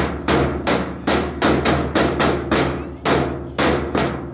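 A steady rhythmic beat of sharp knocks, about three a second, each ringing out briefly, over a low steady hum.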